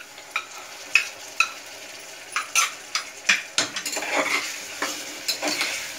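Metal spatula knocking and scraping irregularly against an aluminium pressure cooker and a bowl, as ginger-garlic-green chilli paste goes into chopped onions frying in hot oil, which sizzles steadily underneath.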